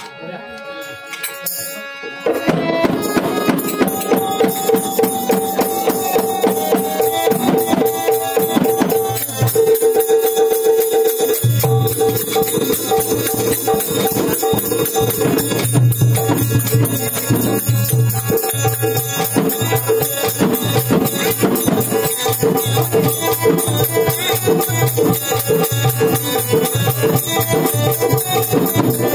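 Marathi folk ensemble accompanying a shahir: drum with jingling, tambourine-like percussion over a steady held tone. It comes in at full strength about two seconds in.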